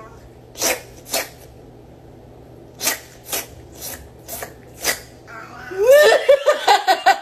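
A cat giving about six short, sharp, sneeze-like bursts of breath, spaced roughly half a second to a second and a half apart. Near the end comes a loud, wavering, rapidly repeating pitched call.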